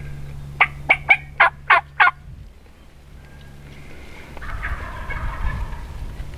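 Wild turkey calling: six loud, raspy notes in quick, even succession over about a second and a half. Softer, muffled noise follows near the end.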